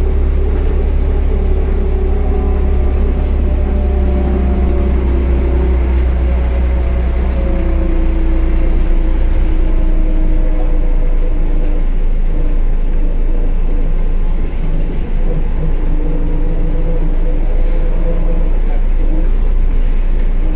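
Inside a Škoda 14Tr trolleybus under way: a steady low rumble with the electric drive's whine over it, rising and falling slowly in pitch as the trolleybus speeds up and slows down. The rumble is heaviest during the first several seconds.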